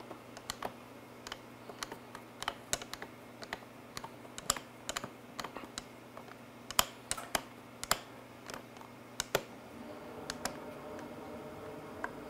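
Sharp, irregular clicks and taps from a screwdriver and plastic fairing parts as screws go into a Suzuki Hayabusa's right fairing. A steady hum comes up near the end.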